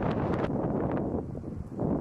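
Storm wind buffeting the microphone: dense, gusty noise that eases briefly after about a second and then picks up again.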